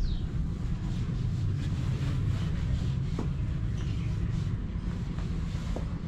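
Steady low rumble of wind and handling noise on a carried action camera's microphone, with two faint knocks, one about three seconds in and one near the end.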